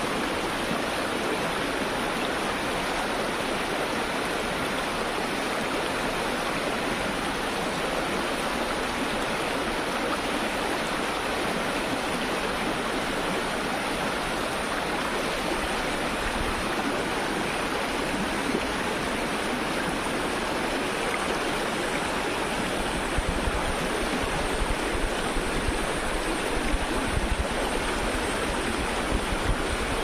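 Shallow river rapids rushing steadily over stones, a continuous loud wash of water.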